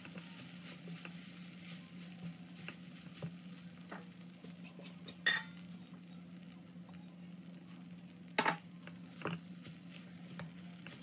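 Spatula stirring rice in a nonstick wok, with a few scrapes and knocks against the pan, the loudest about five seconds in and another at about eight and a half seconds. A steady low hum runs underneath.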